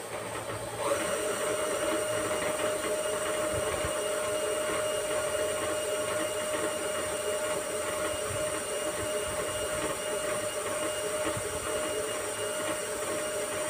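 Electric stand mixer starting up about a second in and then running steadily with a constant whine, beating hard, fridge-cold buttercream icing in its stainless steel bowl to soften it.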